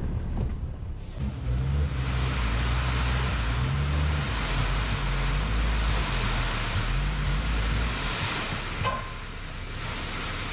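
Dump truck's diesel engine running at raised revs to drive the tipping hydraulics, its pitch rising and falling, over a dense rushing sound of a load of soil sliding out of the raised body. The engine drops back near the end, and there is one sharp knock.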